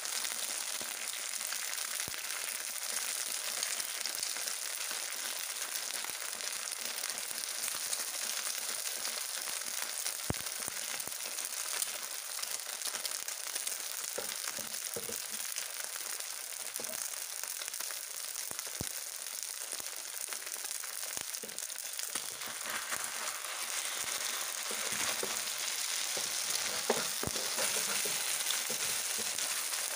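Mussels, seafood and egg frying in batter in a nonstick pan, with a steady sizzle. A wooden spatula scrapes and knocks against the pan now and then, more often near the end as the mixture is stirred.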